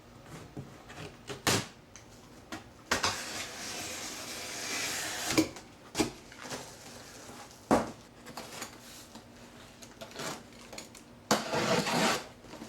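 Unboxing a boxed portable generator: cardboard and packing being pulled open and handled. There are a few sharp knocks and a couple of seconds of rough rustling and scraping, with another short burst of it near the end.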